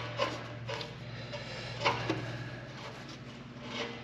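Steel nut being spun by hand onto a rotary cutter's blade bolt to get it hand tight: a few scraping strokes as the threads turn, the loudest about two seconds in, over a steady low hum.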